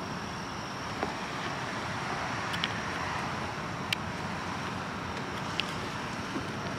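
Steady road-traffic noise, with a few faint sharp clicks.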